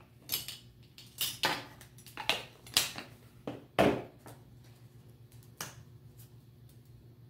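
Plastic measuring spoons tapping, clicking and scraping against spice containers and a mixing bowl as spices are measured out: about six scattered sharp taps and short scrapes.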